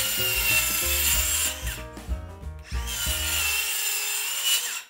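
Milwaukee cordless circular saw cutting plywood strips: two passes, each about a second and a half long, the blade giving a high whine over the cutting hiss. Background music plays underneath.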